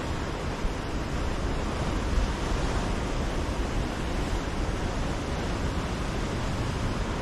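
Ocean surf washing steadily against a rocky shoreline, an even rush of breaking waves with a slight swell about two seconds in.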